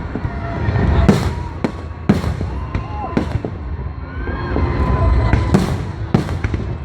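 Fireworks going off: a string of about seven sharp bangs at uneven intervals over a continuous low rumble.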